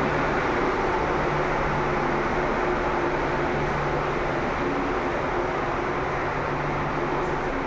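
Fresh-air ventilation fan running steadily: a constant rush of air with a low hum underneath.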